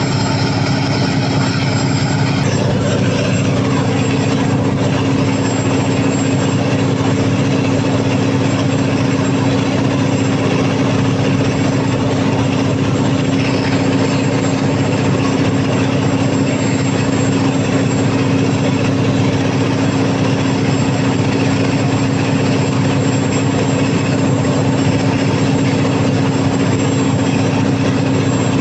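Cummins KTA50 turbocharged V16 diesel generator engine running steadily and loudly. Its tone shifts slightly about two seconds in, then holds steady.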